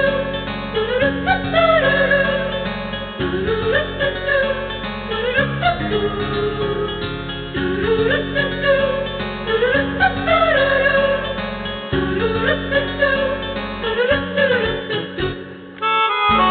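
Background music: a gliding melodic lead over steady chords, repeating in phrases, with a short drop in level just before the end.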